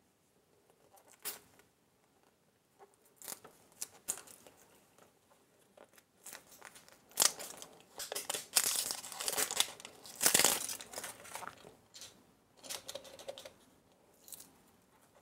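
Packaging crinkling and tearing as a toy surprise egg is opened by hand. First a few scattered clicks and rustles, then dense crinkling through the middle, then a few more rustles near the end.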